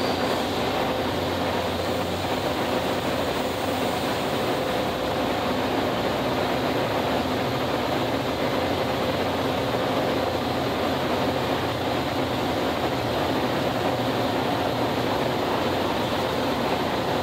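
Metra commuter train's stainless-steel bilevel coaches rolling past on departure: a steady noise of wheels on rail with a faint steady hum through it.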